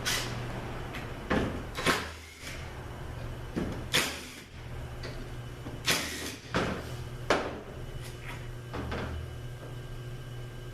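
Several short bursts of a small power tool spinning out the Torx bolts that hold the auxiliary valve body to an automatic transmission valve body, with a steady low hum beneath.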